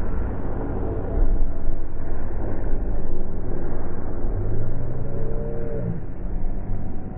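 A steady low rumble, with a motor's droning tone swelling about four and a half seconds in and dropping away just before six seconds.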